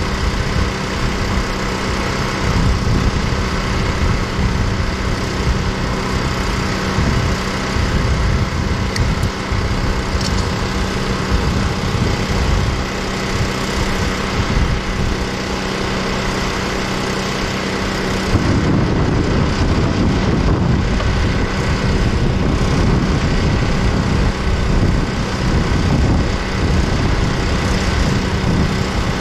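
An engine running steadily at a constant speed, its hum unchanging; a low rumble underneath grows louder about two-thirds of the way through.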